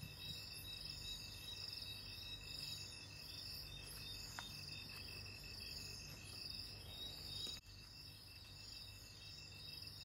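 Faint steady chorus of insects: a fast, even chirping trill and a higher shrill buzz over a low hum, with a brief sudden dip about three-quarters of the way through.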